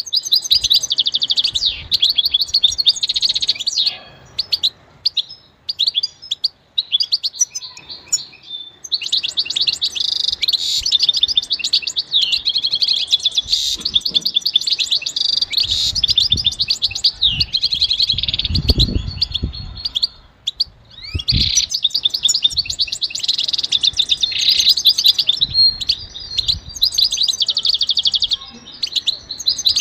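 European goldfinch singing: long runs of fast twittering and trills, with sparser breaks a few seconds in and about two-thirds through.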